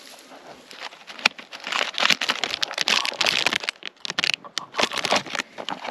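Dry, irregular crinkling and rustling with many sharp little clicks, building about a second in and busiest through the middle.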